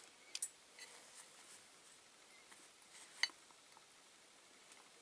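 A few faint clicks and taps from small parts and tools being handled on a workbench, with one sharper click about three and a quarter seconds in, over quiet room tone.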